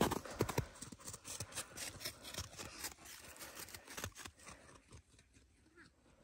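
Footsteps crunching in packed snow, loud at first and then fading as they move away.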